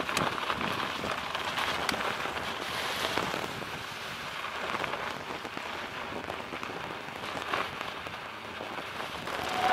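Mountain bike riding over snow: a steady crackling hiss of the tyres on the snow, broken by a few sharp knocks and clicks from the bike.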